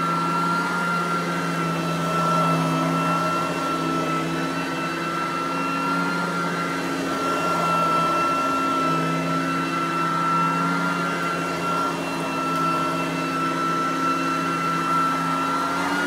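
Riccar Supralite Sand Trap upright vacuum running steadily with a high whine while it is pushed back and forth across carpet.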